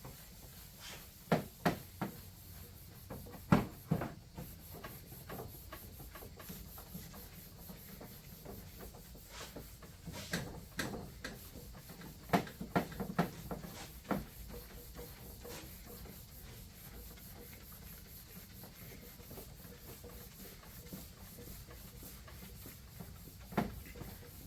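Wet sponge rubbing polishing compound by hand over the hood of a John Deere L110 lawn tractor, with scattered sharp knocks and scrapes in clusters.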